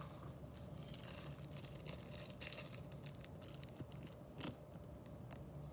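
Faint handling noise as diecast toy cars are picked up and shown: light crinkling and a few small clicks, the sharpest about four and a half seconds in, over a steady low hum.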